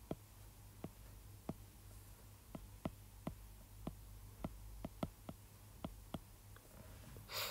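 Stylus tip tapping on a tablet's glass screen while handwriting, a string of faint irregular clicks, about two a second, over a low steady hum. A brief hiss near the end.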